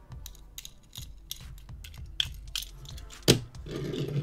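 Small scattered clicks and clinks of a die-cast metal toy armoured car being handled and turned over in the fingers, with one sharp knock about three seconds in as it is set down on a cutting mat.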